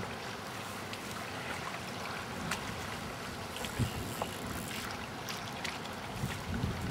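Steady outdoor hiss of wind and choppy lake water, with a few faint clicks.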